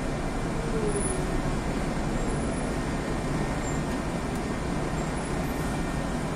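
Interior noise of a Tezeller TezAuto LF1200 city bus running: a steady engine and road noise, with a faint whine that fades out about a second in.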